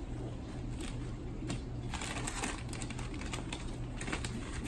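Packing paper and padding rustling and crinkling as they are pulled out of a cardboard shipping box, a patter of crackles that grows busier about two seconds in, over a steady low hum.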